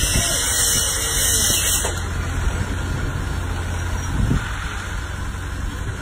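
Gentec GE970 hydraulic plate compactor vibrating a wooden pile down, a high-pitched shrill that stops about two seconds in. A steady low engine rumble runs underneath.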